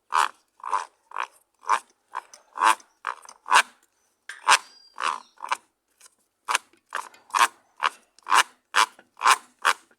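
Washing machine agitating, with a rasping 'crrr' grind on each stroke, about two a second. It is the fault noise that appears only while washing, not while spinning.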